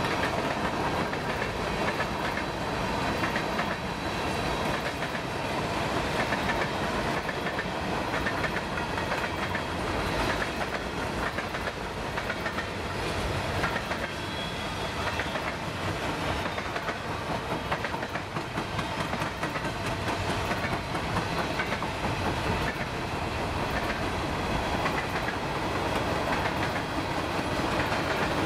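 Freight cars of a passing train, covered hoppers and tank cars, rolling by: a steady rumble and clatter of wheels on the rails, with no break.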